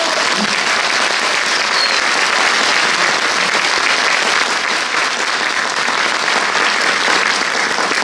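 Audience applauding, a dense, steady clapping.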